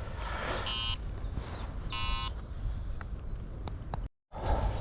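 Two short, buzzy electronic beeps about a second apart, typical of a carp-fishing bite alarm sounding as line runs through it, over a faint outdoor background.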